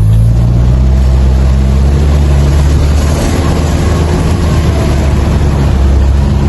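Engine of a Veter all-terrain vehicle running steadily with a low, even drone while the vehicle moves.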